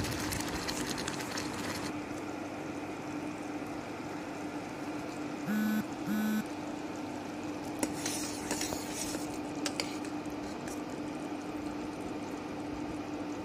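Thickening black grape jam boiling and bubbling in a pan, with a ladle stirring and now and then clinking against the pan. A steady hum runs underneath, and two short beeps sound about six seconds in.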